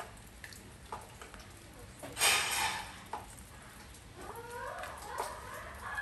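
Rain on a porch, a faint steady patter with scattered drips ticking. About two seconds in comes a loud short hissing rush, and from about four seconds in an animal calls several times, its pitch sliding up and down.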